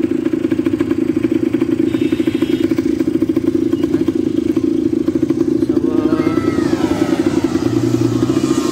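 Quad bike (ATV) engine running steadily at an even speed, a close, fast-pulsing drone with no revving. From about six seconds in, faint rising and falling tones join it.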